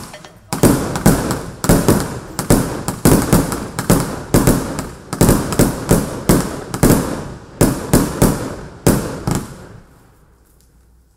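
A consumer fireworks cake (a multi-shot battery) firing: a quick series of sharp bangs from the shots bursting overhead, about three a second. It stops about a second and a half before the end.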